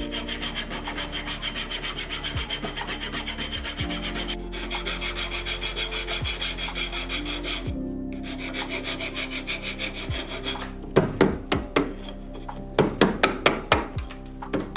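A small hand saw cutting Tasmanian oak hardwood in quick, even back-and-forth strokes, in three runs with short pauses between. From about eleven seconds in, a chisel pares the wood in a string of sharp, louder cuts.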